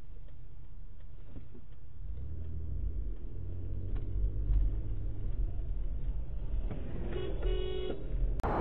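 Low rumble of a car's engine and road noise heard from inside the cabin, growing as the car pulls away from a standstill at a traffic light. Near the end a car horn sounds for about a second.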